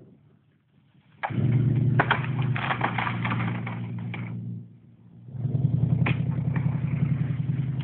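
Old pickup truck's engine running steadily under load as it drags a felled tree, in two pulls: one starting about a second in and another from about five seconds, with a short let-up between. Over the engine, the tree's branches scrape and crackle across the dirt.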